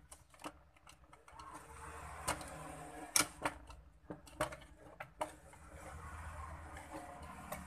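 Irregular plastic clicks and knocks as the opened plastic ear-cup shells of a Rexus gaming headset are handled and pulled apart, over steady background noise.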